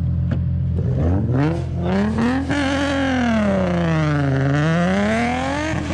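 Car engine revving: its pitch climbs about a second in, sinks back over the next two seconds and climbs again near the end, over a steady low engine drone.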